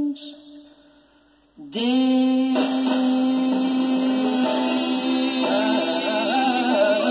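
Recorded orchestral soul ballad with symphony strings and band. A held note dies away, and after about a second's pause the orchestra comes back in with a sustained chord that slides up into pitch. Singing with vibrato follows over it.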